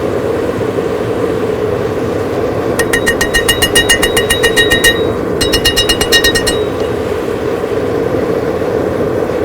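Two runs of rapid, evenly paced hammer blows on steel, about nine a second, each blow ringing. The runs come about three seconds in and again near the middle, over a steady rushing background noise.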